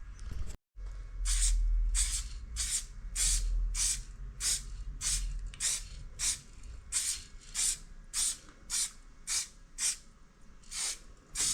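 Aerosol spray paint can (Montana Black Matte) spraying in short, repeated hissing bursts, about two a second, as the paint is laid on a bike frame.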